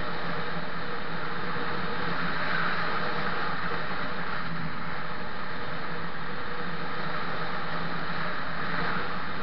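Steady wind noise rushing over the microphone of a camera travelling along a road, with a low steady hum beneath it.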